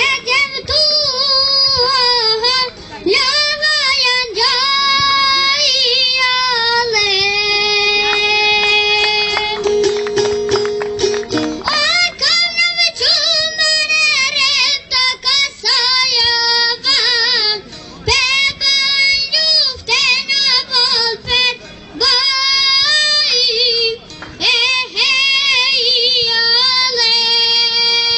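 A boy singing a song in Albanian in a high child's voice over musical accompaniment, with vibrato and long held notes between phrases.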